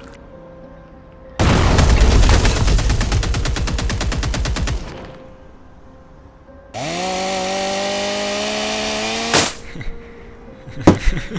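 Rapid machine-gun-style gunfire sound effect, a dense burst lasting about three seconds. Later comes a pitched, motor-like whine that rises and then holds steady for about two and a half seconds, ending in a sharp hit. A few scattered impacts follow near the end.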